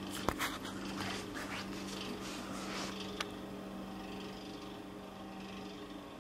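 A steady low hum, with faint clicks and rustling as a homemade propane spud gun is handled and aimed; a sharp click comes about a third of a second in.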